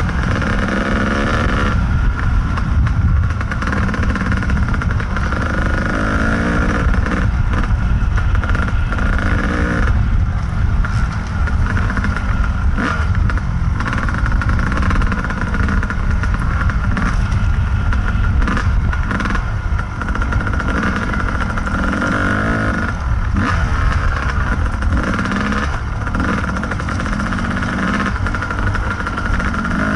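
Kawasaki KDX220 two-stroke dirt bike engine running close up under trail riding, its revs rising and falling with the throttle.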